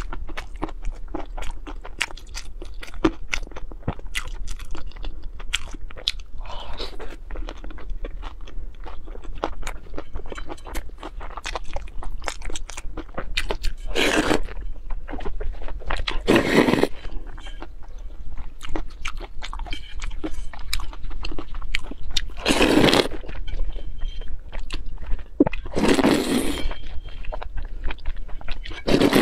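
Close-miked eating: wet chewing with many small clicks and crunches, then several loud slurps, about five, as noodles are sucked up from spicy broth, mostly in the second half.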